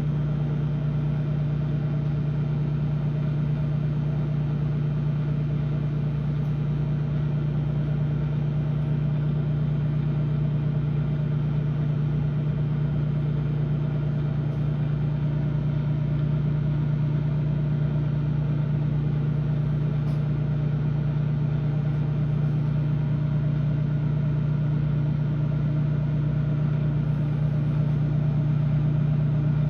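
Microwave oven running, a steady low hum that holds unchanged throughout.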